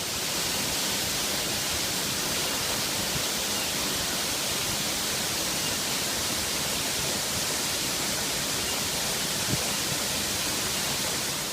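Waterfall of moderate flow pouring over a rock face into a pool: a steady rushing hiss of falling water that eases off near the end.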